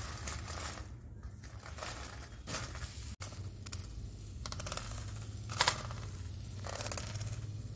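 Crisp fried besan sev crackling and rustling as hands crumble and sift it over a steel plate, with a sharper clatter of pieces dropping onto the plate about five and a half seconds in. A low steady hum runs underneath.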